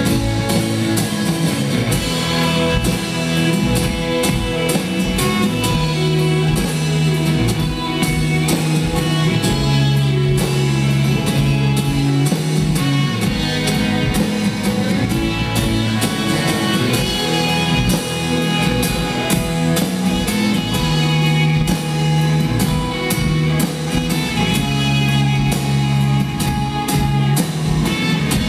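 A rock band playing live: electric guitars and a drum kit in an instrumental outro, without vocals.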